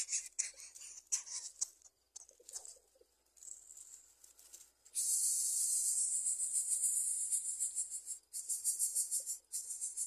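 Twigs and dry grass of a nest rustling and scratching in short bursts, then from about five seconds in a steady, high-pitched buzzing hiss of fast pulses takes over.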